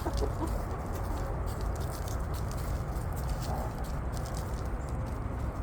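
Backyard chickens pecking and scratching at fresh cilantro: a patter of light, quick clicks and rustles over a steady low rumble.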